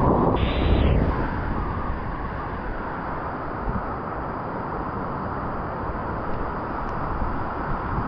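Wind buffeting the microphone, a steady low rumble, over the wash of small waves running up the sand. There is a louder rush in the first second.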